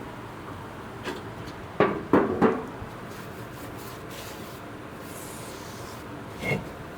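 Several sharp knocks and clunks: three loud ones in quick succession about two seconds in, a lighter one before them and another near the end.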